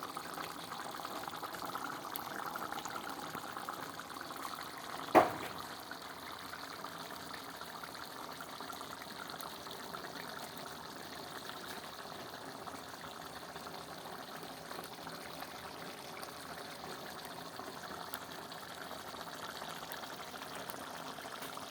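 Pork curry cooking in a pot, a steady watery hiss, with a single sharp knock about five seconds in.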